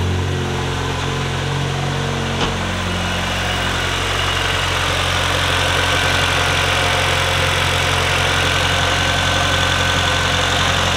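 Turbocharged 2015 Honda Civic Si's 2.4-litre four-cylinder idling steadily, running fine after the boost controller install. There is a single light click about two and a half seconds in, and a faint steady whine joins soon after.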